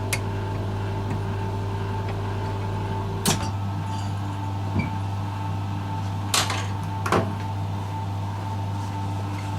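A steady machine hum with a thin whine over it, broken by four sharp knocks or clinks, the loudest about a third of the way in and two close together past the middle.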